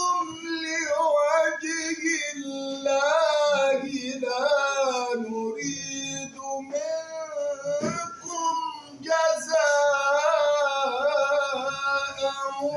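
A male qari reciting the Quran in the melodic mujawwad style, drawing out long ornamented notes that rise and fall in pitch.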